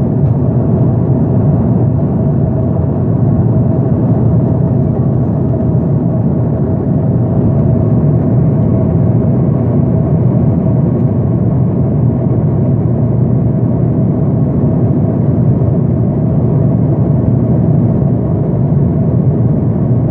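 Steady drone of aircraft engines and rushing air inside a passenger cabin in flight, with a constant hum running through it.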